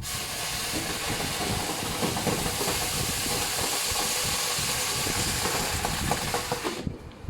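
A steady, loud hiss that cuts off suddenly near the end.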